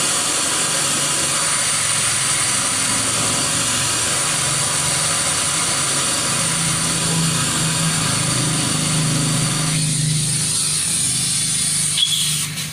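Compressed air hissing steadily from an air-hose nozzle blown into a motorcycle engine to push out the last of the dirty oil through the drain hole, with a low hum beneath. The hiss weakens about ten seconds in and stops near the end after a short click.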